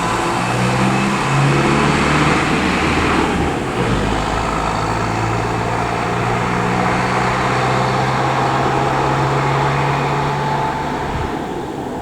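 Engine of a fire-service vehicle running as it drives off, over a broad wash of road and tyre noise. The engine note rises about a second in, holds steady, then drops away near the end.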